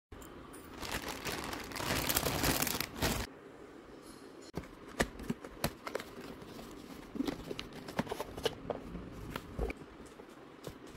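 Plastic courier mailer crinkling and tearing as it is opened, loudest for about two seconds near the start. After that, scattered light taps and scrapes as a cardboard box is opened and a plastic glasses case is slid out.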